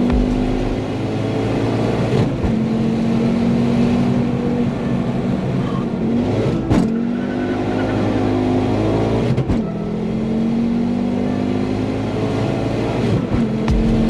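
Tuned turbocharged Ford Focus ST, fitted with a ball-bearing hybrid turbo, accelerating hard through the gears. The engine note climbs over several seconds, then drops briefly at each of three or four gear changes.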